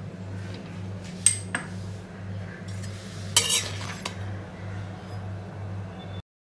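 A metal spatula and spoon clink and scrape against a tawa griddle, with a louder scrape about three and a half seconds in as the spatula slides under the naan. A steady low hum sits underneath. The sound cuts off abruptly just before the end.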